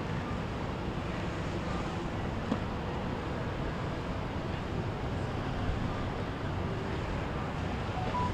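Steady low rumble of boat engines and water, with wind buffeting the microphone and a faint click about two and a half seconds in.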